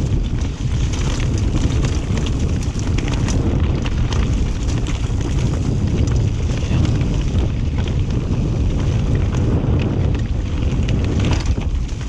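Wind buffeting the camera's microphone over a mountain bike riding fast down a rough dirt singletrack: a steady deep rumble from the tyres and wind, with many quick clicks and knocks as the bike rattles over the ground.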